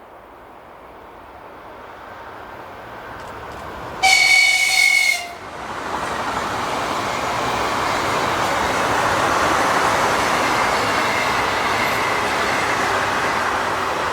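An electric train approaches and gives one horn blast of just over a second, the loudest sound. It then runs past close by with a steady loud rush of wheels on rails.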